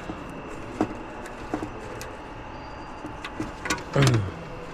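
Scattered light clicks and taps of plastic trim and clips being handled while the bonnet release cable is unclipped, over a steady low background hum. A short low voiced sound comes near the end.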